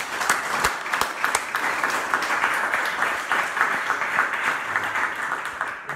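Audience applauding in a small room: dense, steady clapping that ends near the end.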